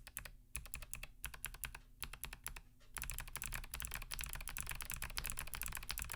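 Typing on a mechanical keyboard with clicky leaf-spring switches. For about the first three seconds the keystrokes are spaced out with short gaps, then a fast, dense run of keystrokes follows.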